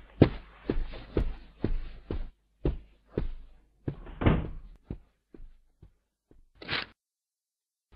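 A run of short knocks with brief rustling tails, coming irregularly about twice a second and thinning out and fading, then one short crackle near the end.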